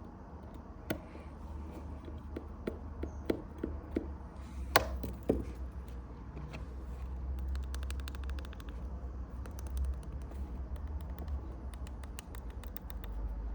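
Small metallic taps and clicks of a precision screwdriver and tiny screws on an iPhone 6S home-button bracket, the loudest a sharp tap about five seconds in. Then comes a run of fine, rapid ticking as the screws are turned in. A low steady hum lies underneath.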